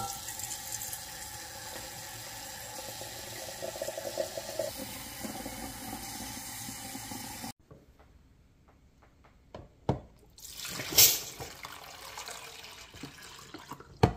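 Kitchen tap running steadily into a glass coffee carafe, filling it, and cutting off sharply about seven and a half seconds in. Then a few knocks and one loud clatter while a drip coffee maker is handled.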